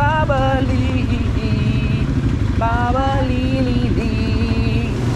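ATV engine running under throttle on a bumpy trail. Its pitch jumps up sharply twice, near the start and about two and a half seconds in, as the throttle is opened.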